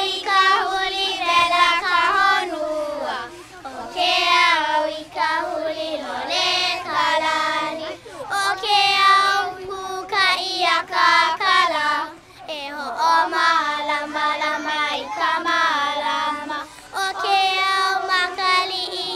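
Children singing a song, in phrases of about four seconds with short breaks between.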